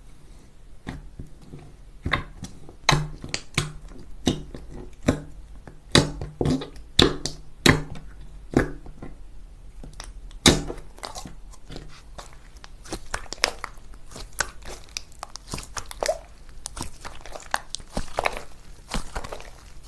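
Crunchy slime being pressed and squeezed by hand, giving sharp, irregular crackles and pops, with denser, softer crackling in the second half.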